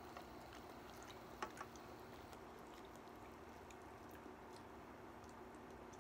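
Near silence with a faint steady hum, broken by a few soft clicks of a ladle and chopsticks against the pan and bowl, the sharpest about a second and a half in, along with faint eating sounds.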